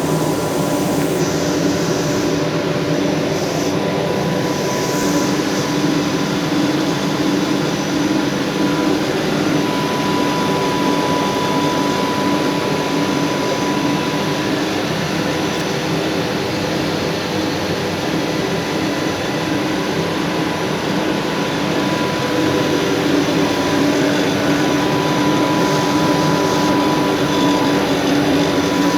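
Plastic bag making machine running steadily, a continuous mechanical drone with a thin high whine that fades in and out.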